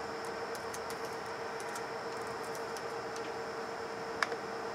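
Laptop keyboard keys being tapped as a password is typed, a run of light clicks, then one louder click about four seconds in. Under them runs a steady hum with a faint whine.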